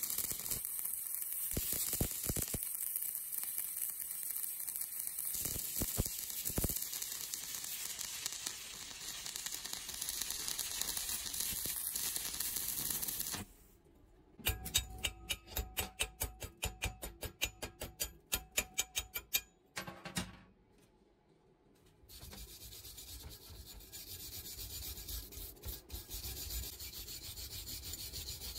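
Stick-welding arc crackling steadily as a welding rod is run around a thin pipe-to-plate joint, stopping about halfway through. Then a wire brush scrubs the fresh weld in quick, even strokes, about three or four a second, pauses briefly and scrubs on.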